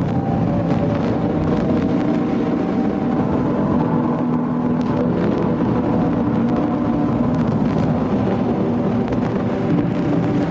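Dark ambient drone music, played at one and a half times speed: a dense, steady wash of layered sustained tones over a hissing, noisy haze, with faint crackles.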